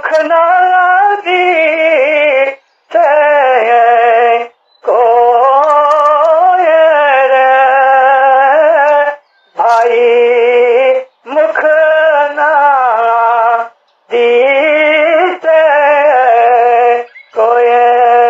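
A devotional song sung by a single voice, in long, wavering, ornamented melodic phrases with short breaks between them.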